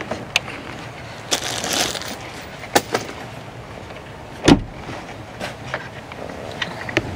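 Scattered clicks and knocks of plastic trim pieces being handled and set down while taking off a Ford Bronco's front grille. There is a short rustle a little over a second in, and a louder knock about four and a half seconds in.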